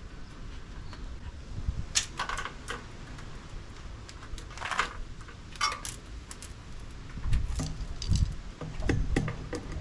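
Scattered metallic clinks and light rattles of hand tools and small parts being handled during car repair work, with a few dull knocks in the last few seconds.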